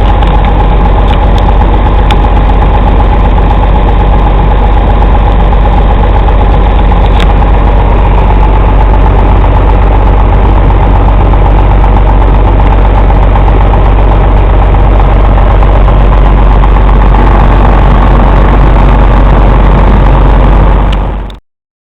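Heavy truck's diesel engine idling, loud and steady with a deep rumble and a constant whine; the sound cuts off abruptly near the end.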